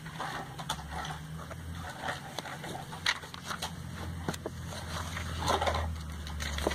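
Pages of a glossy paper catalogue being flipped and handled: rustling with many small crackles and ticks, over a low steady hum.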